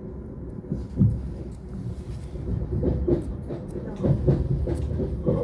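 Lastochka electric multiple unit heard from inside the carriage while running: a steady low rumble with the clack of wheels over rail joints, one knock about a second in and a run of clacks in the second half.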